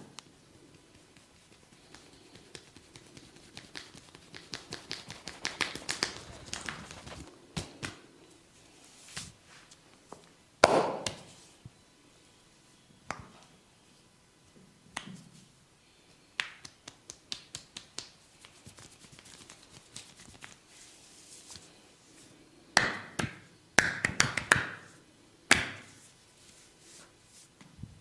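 Hair cracking during a head massage: the barber's hands pull and snap tufts of hair, making sharp cracks and snaps. A fast run of crackles comes in the first third, a single loud crack near the middle, scattered clicks after it, and a cluster of loud cracks near the end.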